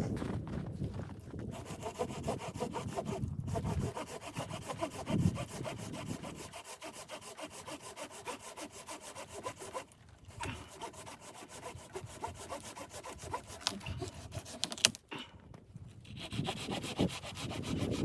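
A saw cutting through wood, steady rasping strokes with short breaks about ten and fifteen seconds in.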